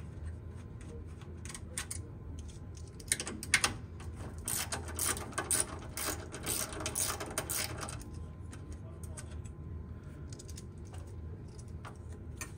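Small socket ratchet wrench clicking as hex-head sheet-metal screws are backed out, with a dense run of rapid clicks in the middle few seconds.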